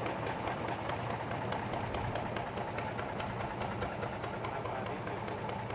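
Small narrow-gauge internal-combustion locomotive engine running steadily with an even, rapid low pulse.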